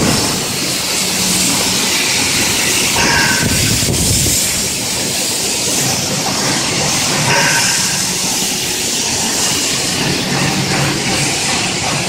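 Steady, loud factory-floor noise, an even rush of sound with a faint low hum that comes and goes.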